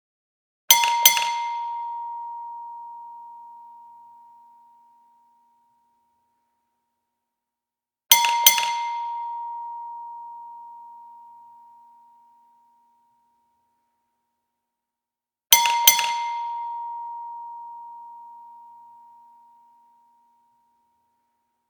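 Gas station bell ringing ding-ding three times, each a quick double strike followed by a clear tone that rings out and fades over a few seconds, the rings about seven and a half seconds apart.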